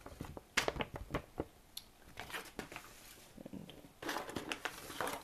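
Handling noise of paper and packaging: a few sharp clicks and knocks as a glossy paper flyer is handled and set down, then rustling from about four seconds in as hands reach into a cardboard box of foil snack pouches.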